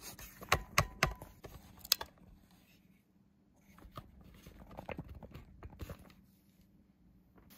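Handling noise from a camera being picked up and turned around: several sharp knocks and clicks in the first two seconds, then softer rustling and taps.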